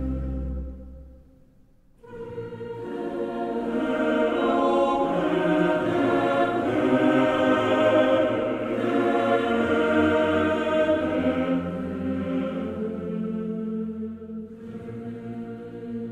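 Background choral music: held, overlapping choir voices that fade almost away about two seconds in, then swell back and carry on.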